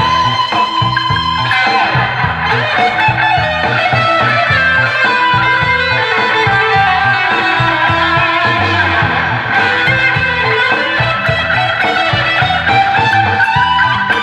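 Instrumental music: a guitar plays a melody with sliding, bending notes over a bass line.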